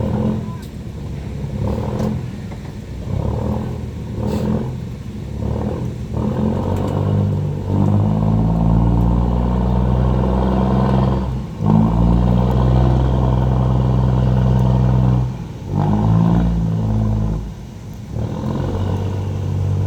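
Fishing boat engine running loud, its pitch shifting up and down as the throttle changes, loudest from about eight seconds in, with a few short drops.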